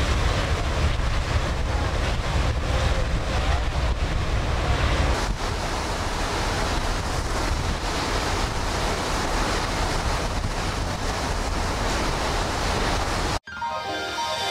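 Wind buffeting the microphone over the rush of a ship's churning wake at sea, steady until it cuts off abruptly near the end.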